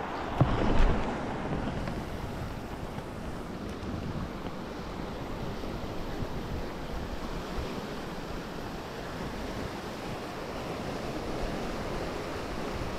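Surf washing against a rocky shore, with wind buffeting the microphone and one louder surge about a second in.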